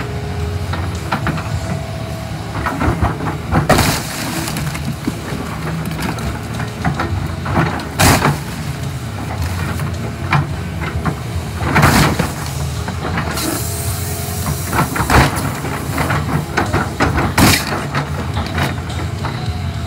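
A large tracked excavator's diesel engine runs steadily under load while its bucket crushes a car's roof, with loud crunches of bending sheet metal and breaking glass about five times, roughly every three to four seconds.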